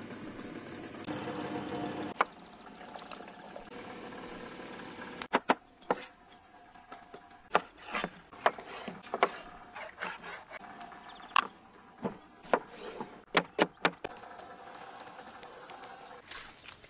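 Kitchen knife chopping tomatoes on a wooden cutting board: a dozen or so sharp, irregular knocks spread over several seconds, after a few seconds of steady background noise.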